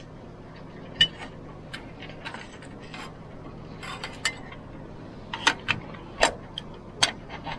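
Hand tools clicking and clinking against the metal masthead fitting: a single sharp click about a second in, then a run of irregular taps and clinks in the second half, over a faint steady low hum.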